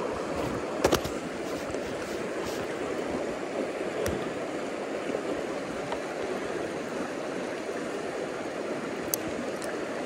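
Small, shallow stream running steadily over a rocky bed, a continuous rush of water, with a few small clicks: one about a second in, one about four seconds in and one near the end.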